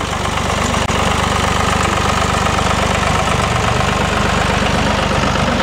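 Tractor engine running steadily as it pulls a trailer close past, growing louder over the first second.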